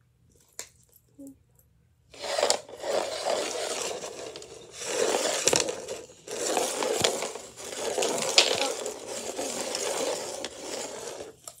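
Plastic toy packaging crinkling and tearing as it is worked open by hand, starting about two seconds in and going on in several stretches with a few sharper crackles.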